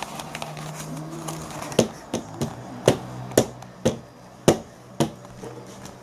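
A small child's hands slapping the plastic lid of a kitchen bin: about eight sharp taps at uneven intervals, over a low steady hum.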